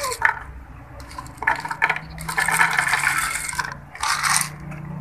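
A hungry stray cat eating wet food from a tray, with irregular wet smacks and clicks of chewing and lapping. There is a longer stretch of it in the middle and a short burst near the end.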